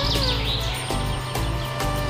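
Background music with a steady beat; a run of high chirping notes falls away in the first half-second.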